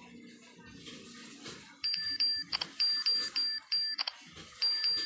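Facemoji phone keyboard key-press sound effects as a message is typed: short high beeps, each with a click, two or three a second, starting about two seconds in.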